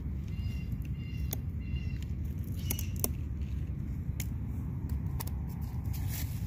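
A few sharp clicks and snaps of squash stems and leaves being handled and cut during harvesting, over a steady low rumble.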